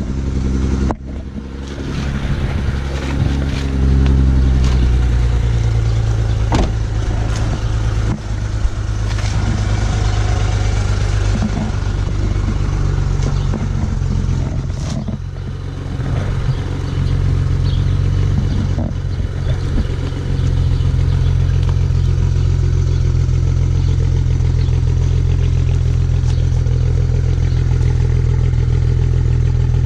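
BMW N54 twin-turbo straight-six idling on a cold start, running rough with a small misfire. The engine note wavers unevenly over the first twenty seconds, then settles to a steadier idle, with a few sharp clicks now and then.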